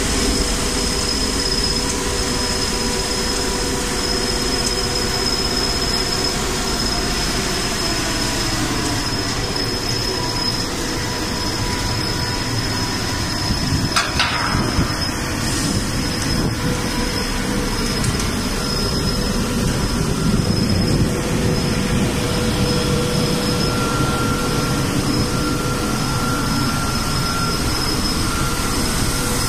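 Grain cleaning machine and belt conveyors running together: a steady, loud machine noise with a few high steady whines over it, and a single sharp knock about halfway through.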